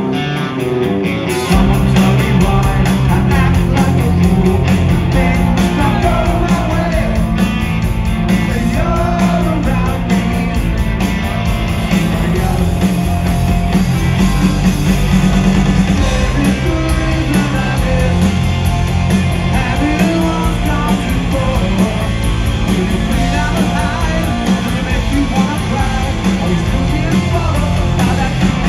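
Rock band playing live on electric guitars, bass and drums in a loud, steady instrumental passage, heard from the crowd. The bass and drums fill in about a second and a half in.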